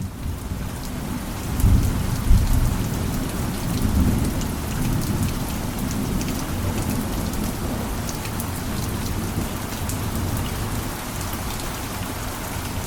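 Rain falling steadily, with drops pattering on a surface, and a low rumble of thunder that swells about two seconds in and then fades back into the rain.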